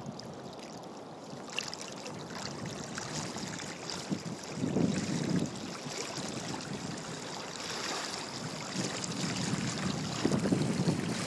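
Wind noise on the microphone over water lapping, with two louder low gusts: one about five seconds in and one near the end.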